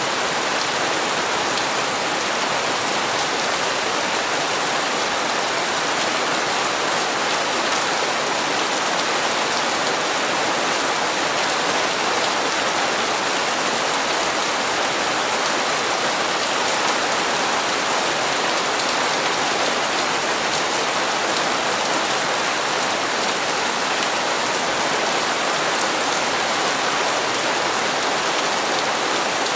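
Steady rain falling and pattering on hard surfaces, an even hiss with no let-up or change.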